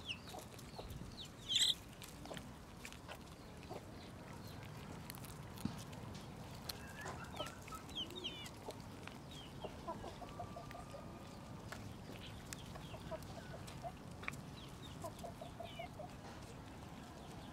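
Chickens clucking in short runs of quick, evenly spaced clucks, with scattered high chirps; the loudest sound is a single sharp high chirp about a second and a half in.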